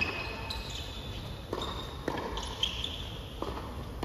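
Tennis balls struck by rackets in a quick net exchange of a doubles rally, about six sharp hits in four seconds, with rubber-soled shoes squeaking on the hard court between them.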